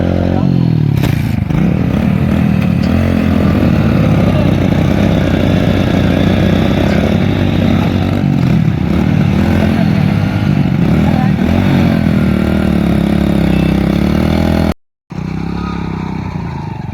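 Motorcycle engine running, its pitch rising and falling repeatedly. The sound cuts out abruptly for a moment near the end.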